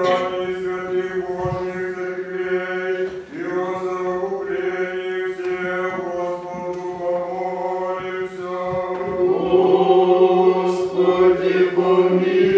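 Old Believer church choir singing liturgical chant in unison, on long held notes. It grows louder about nine seconds in.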